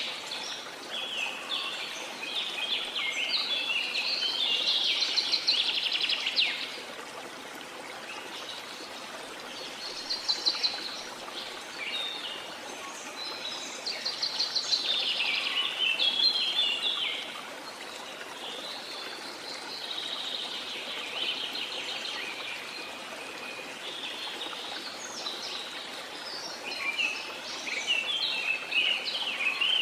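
Steady rushing of falling water, with birds chirping and singing in repeated bouts over it.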